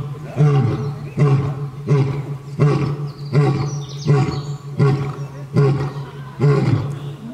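Male lion's roaring bout tailing off into a run of short, deep grunts, about one every three quarters of a second.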